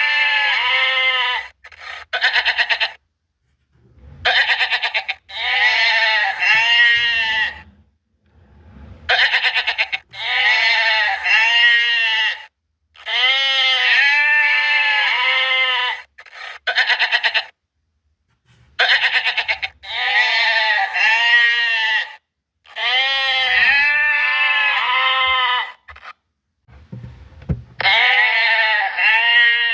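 Goats bleating again and again: loud, quavering calls one to three seconds long, one after another with short pauses between them.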